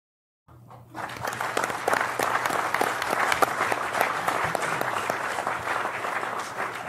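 Audience applauding in a large hall. It starts about half a second in and swells within a second into sustained clapping, which eases slightly toward the end.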